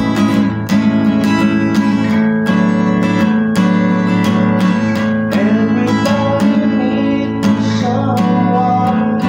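Acoustic guitar music, strummed in a steady, even rhythm.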